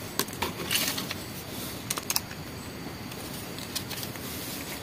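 Scattered light clicks and rattles as a screwdriver and a plastic two-gang switched socket with its wiring are handled, with a faint steady hiss behind.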